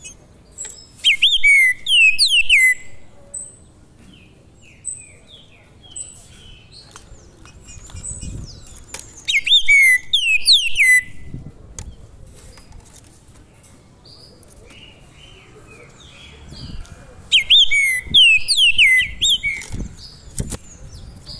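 Caged songbird singing three loud whistled song phrases about eight seconds apart, each a quick run of descending notes, with soft chirps in between.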